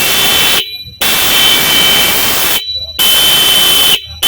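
PTi P70 dual electric horn pair, powered from a battery, sounding in loud blasts of several high tones at once. One blast ends about half a second in, then comes a longer blast of about a second and a half, then a one-second blast, and another begins right at the end.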